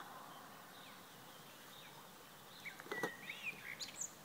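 A small songbird sings a short phrase of whistled chirps and curling notes a little under three seconds in, over faint outdoor background hiss, with one sharp click at the start of the phrase.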